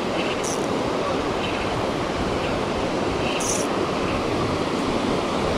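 Shallow river rapids running over rocks, a steady rush of water. Two brief high hisses sound over it, about half a second and three and a half seconds in.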